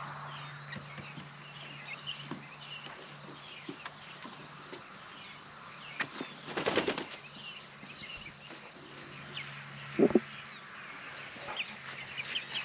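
Young chickens peeping in short high chirps, with a loud burst of rapid wing flapping about six seconds in and another brief flurry near ten seconds. A faint steady low hum runs underneath.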